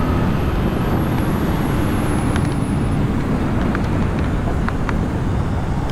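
Heavy wind noise on the microphone at about 150 km/h, steady throughout, with a Bajaj Pulsar NS200's single-cylinder engine running at high revs underneath.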